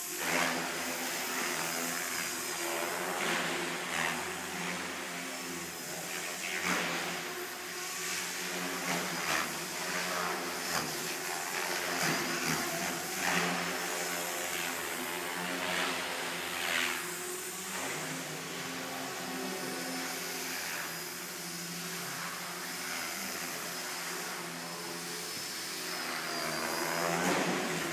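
MSH Mini Protos electric RC helicopter in flight: the steady whine of its Scorpion brushless motor and drivetrain, with rotor-blade whooshes that swell every few seconds as it manoeuvres and a slight rise and fall in pitch.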